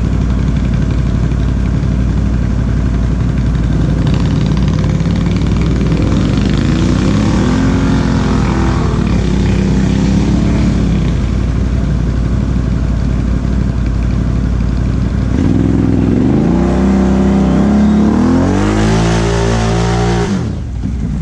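Can-Am Outlander XMR 1000 ATV's V-twin engine, fitted with a Big Gun exhaust, running under load through mud. It revs up and back down about seven seconds in, surges again for several seconds from about fifteen seconds, then drops off sharply near the end.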